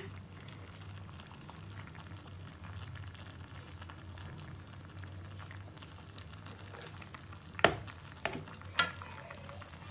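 Pot of water on the boil with blanched cassava leaves in it, a steady bubbling and hiss, as the leaves are stirred and lifted with tongs. Two sharp knocks near the end, about a second apart, are the loudest sounds.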